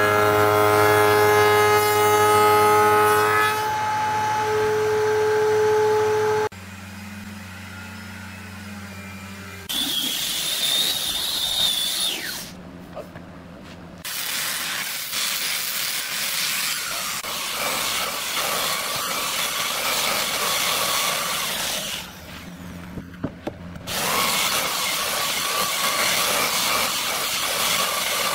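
Woodworking power tools in turn: a table saw ripping a hardwood board, its motor tone steady until it cuts off about six seconds in, then stretches of hissing, grinding machine noise from handheld power tools working the boards, ending with a belt sander running over a board.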